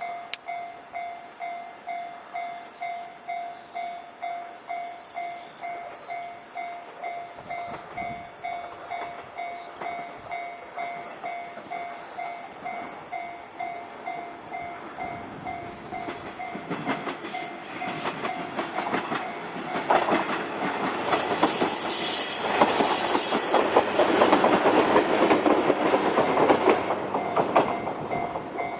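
Japanese level-crossing alarm ringing its warning tone about twice a second. From about 17 seconds in, a train runs over the crossing, growing loud and covering the alarm for several seconds near the end, with a brief high hiss in the middle of the pass.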